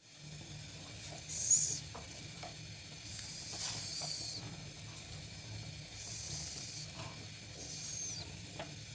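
Pot of vegetable soup boiling while a ladle stirs it: bursts of hissing every second or two, with a few light clicks of the ladle, over a low steady hum.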